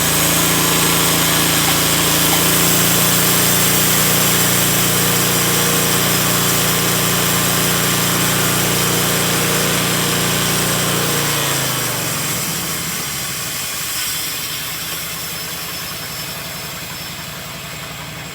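Sawmill engine running at steady high speed while the blade cuts a cedar log on a first skim cut, with a strong hiss over the engine note. About eleven seconds in, the engine pitch falls as it slows, and it runs on lower and a little quieter.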